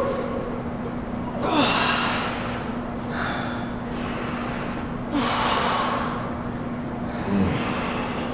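Heavy, forceful exhalations of people exercising, four breaths about two seconds apart, one pushed out at the top of each supine push-up.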